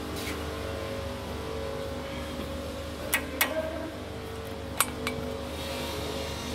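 Steel pliers clinking against the hub at the centre of a front wheel hub: two pairs of sharp metallic clicks about halfway through, over a steady background hum.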